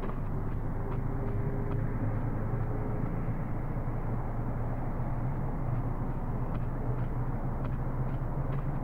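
Steady low mechanical rumble and hum, like a running vehicle or traffic, with a few faint ticks.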